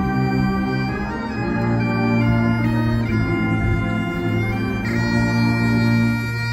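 Bagpipes playing a slow melody of held notes over a steady drone.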